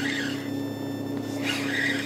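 Steady electric hum of a bass boat's trolling motor, with two short scratchy whirring bursts, one at the start and one about a second and a half in, while a fish is being played on a bent rod.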